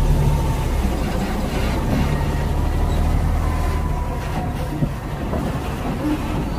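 Heavy diesel truck engine running steadily as a loaded truck drives slowly past close by. The low engine sound weakens after about four seconds.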